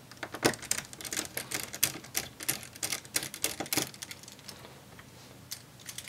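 Small Phillips screwdriver backing a screw out of a laptop's plastic base: a quick run of small clicks and ticks that thins out after about four seconds.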